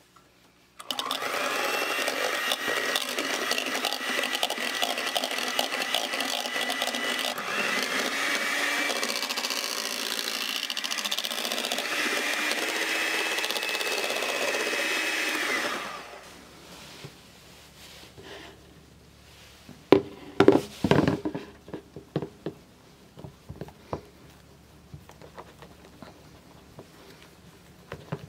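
Electric hand mixer running steadily, its beaters whipping egg whites into stiff meringue in an enamel container, with its pitch shifting slightly a couple of times. It stops about 16 seconds in. A few light knocks follow a few seconds later.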